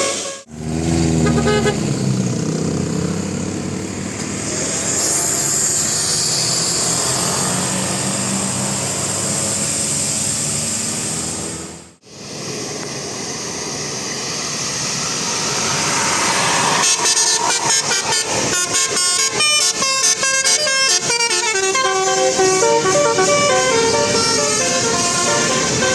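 Indonesian tour bus 'telolet' multi-tone air horns (Basuri-type horns) playing fast melodic tunes over bus engine and road noise. The horn tunes take over and switch rapidly from note to note about two-thirds of the way in.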